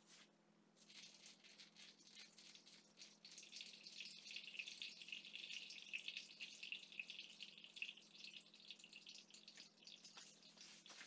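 Coffee trickling from a stainless steel cone dripper into a mug below: a faint, steady, fine trickle that starts about a second in and is strongest midway.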